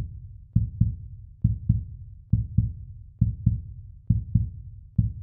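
Heartbeat sound effect: pairs of deep lub-dub thumps, repeating steadily at about seventy beats a minute.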